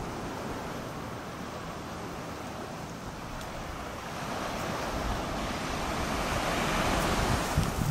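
Surf washing onto a sandy beach, an even rushing noise with wind on the microphone, growing louder in the second half.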